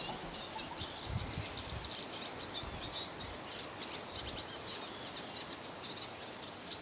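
Small songbirds chirping: many short, high, irregular calls over a steady background hiss, with a couple of faint low bumps about a second in.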